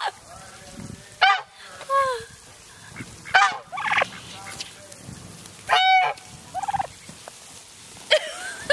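Domestic tom turkey gobbling about four times, each gobble a short rapid warble, a couple of seconds apart.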